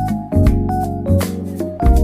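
Background music: keyboard-led instrumental with a bass line and a steady drum beat.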